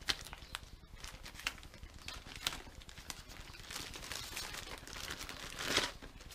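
Clear plastic bag crinkling and rustling as hands open it and pull out a pair of motocross gloves, with scattered small clicks and a louder rustle near the end.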